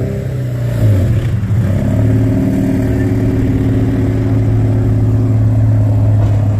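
Dodge Charger's engine running, its pitch shifting briefly near the start and then holding a steady drone.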